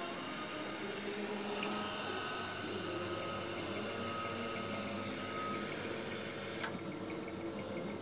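Steady machine hum with several held tones under a hiss. A sharp click comes about seven seconds in, after which the hiss turns quieter.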